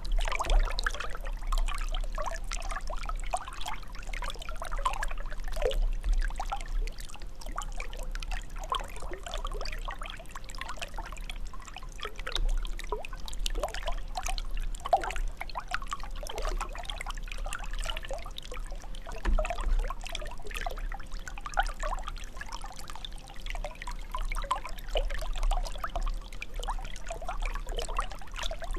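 Water trickling and gurgling, a continuous stream of small irregular bubbly plops and drips.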